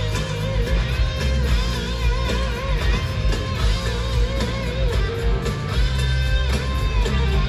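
Live rock band playing loud through the arena PA: electric guitar with wavering, vibrato-laden lead notes over steady bass and drums.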